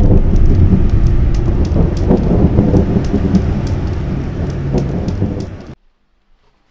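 Thunderstorm sound effect: a dense wash of rain with deep thunder rumble and sharp crackles, easing a little and then cutting off suddenly near the end, followed by near silence.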